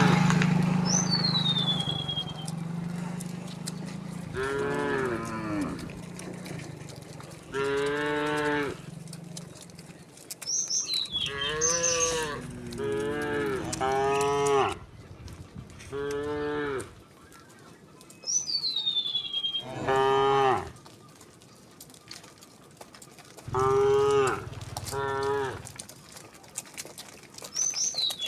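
A herd of cattle mooing as it walks, one long pitched moo every few seconds from different animals, some coming close together.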